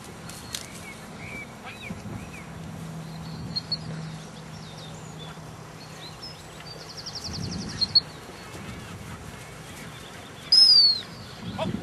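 Birds chirping faintly, with a rapid trill about seven seconds in. Near the end comes one short, loud high whistle that drops slightly in pitch as it stops.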